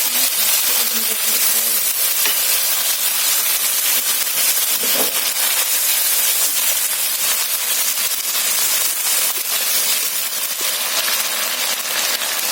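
Spiced oil and masala frying in a kadai: a steady, dense sizzle as the tempering cooks for chole.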